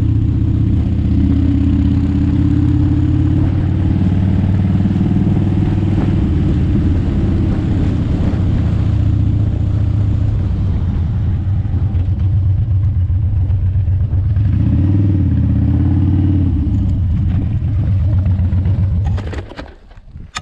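A vehicle's engine running steadily from on board, with a heavy low rumble, its pitch rising and falling a little with speed. About a second before the end the sound drops away suddenly, followed by a few clicks and knocks.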